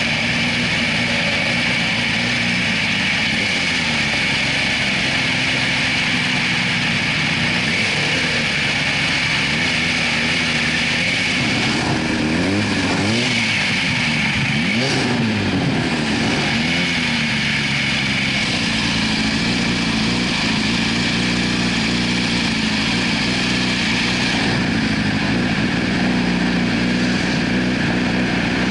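2004 Yamaha YZF-R6's inline-four engine idling steadily while stopped, with passing traffic. Around the middle, pitches sweep up and down for a few seconds.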